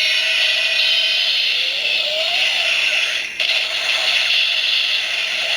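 Electronic finishing-move sound effect from the DX Kamen Rider Necrom transformation bracelet toy's small speaker, in its Sanzo form: a sustained buzzing, whooshing effect with a gliding tone underneath, broken briefly about three and a half seconds in.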